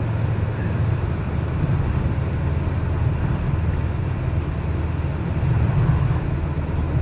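Car heard from inside the cabin while driving slowly through deep hail on the road: a steady low rumble of engine and tyres, swelling a little near the end.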